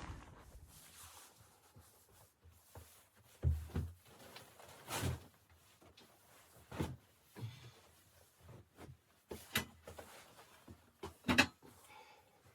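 A handful of separate knocks and thuds at irregular intervals, the loudest near the end, as of things being handled or a door moved.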